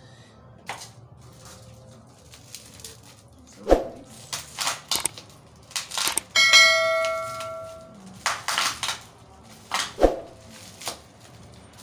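Handling of skin-care packaging: short rustles and two sharp knocks, with a bright ringing chime of several pitches about six seconds in that fades over a second and a half.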